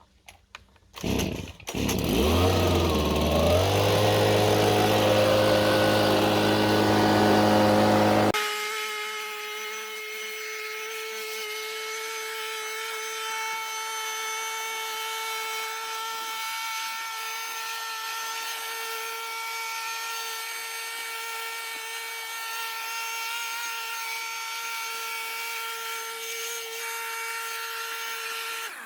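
Leaf blower starting about two seconds in, rising in pitch as it spins up, then running steadily. About eight seconds in the sound suddenly drops in level and loses its low end, leaving a steady whine to the end.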